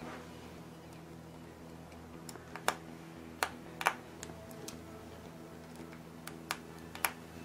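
Small sharp clicks and taps of a precision screwdriver and tiny screws against an iPhone 4's metal frame as its corner screws are taken out, scattered irregularly with the loudest a little under three and four seconds in. A steady low hum runs underneath.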